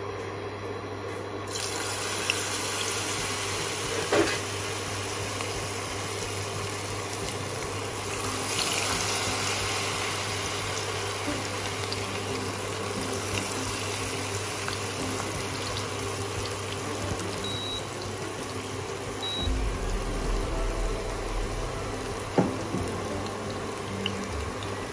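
Cornflour-coated snake gourd pieces sizzling as they deep-fry in hot oil. The sizzle jumps up about a second and a half in as the pieces go into the oil, with a sharp knock twice along the way.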